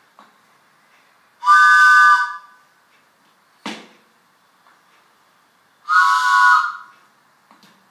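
Handmade wooden train whistle, four whistle bores in one block, blown twice: each blast lasts about a second and sounds as a chord of four close steady tones with breathy hiss. A short knock falls between the two blasts.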